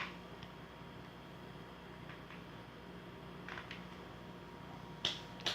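Quiet room tone with a low steady hum and a few faint, scattered clicks, then a sharper click near the end.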